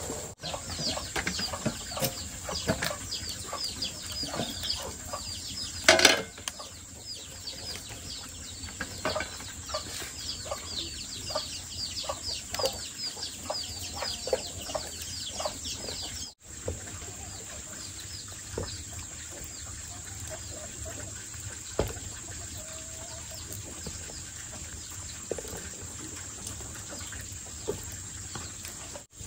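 Chicks peeping, many short high chirps in quick succession, mixed with occasional knocks and clinks of pots being handled. There is one loud clatter about six seconds in. Later the peeping thins out and a steady high insect hum carries on.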